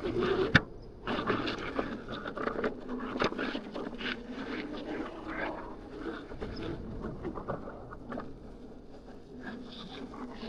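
Electric unicycle's hub motor whining, its pitch wavering with speed, over scattered clicks and clatter from the wheel on an off-road trail. A sharp knock comes about half a second in.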